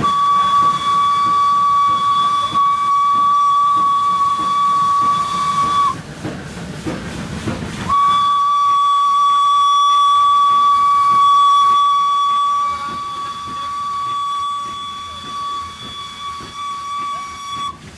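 Steam whistle of WP-class 4-6-2 steam locomotive No. 7161, heard from inside its cab. It is sounded in two long blasts on one steady high note: about six seconds, a two-second break, then about ten seconds.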